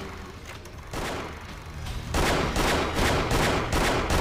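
Pistol gunshot sound effects: a rapid string of shots, about three a second, starting about two seconds in, after a single shot near one second in.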